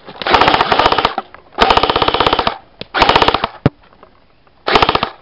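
Airsoft rifle firing on full auto in four bursts of rapid shots, the last burst the shortest.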